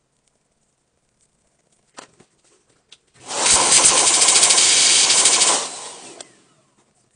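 A small motorized air tool used on an AirPod's speaker grille: a few light clicks, then a loud rush of air with a fast motor flutter in it. The air rush starts a little past three seconds in, holds for about two and a half seconds, and tails off.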